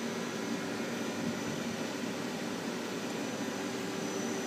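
Steady machine hum and hiss from a powered-up 2001 Topper TNL-100A CNC turning center, with a faint high whine over it.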